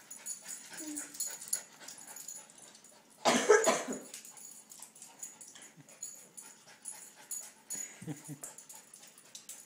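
Two young dogs play-fighting, with many small clicks and scuffles of paws and claws. One dog gives a loud vocal outburst about three seconds in, and there are a few short low growly sounds near the end.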